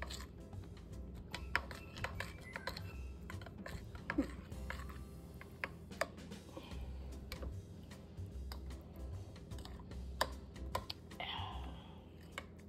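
Metal spoon clicking and scraping against a ceramic bowl in irregular strokes while stirring a wet mixture.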